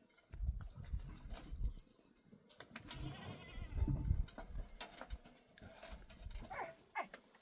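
Bleating of flock animals, goats or sheep, with two short wavering calls near the end, over low rumbling thumps earlier on.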